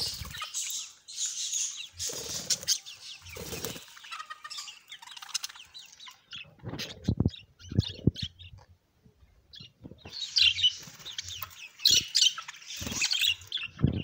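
A flock of budgerigars chattering: dense, scratchy chirping that thins out in the middle and swells again near the end, with some wing flapping and low thumps.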